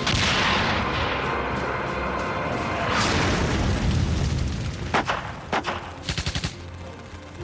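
A tank cannon fires with a heavy blast, and a second explosion follows about three seconds in. Near the end come two single shots and a short, rapid machine-gun burst, over background music.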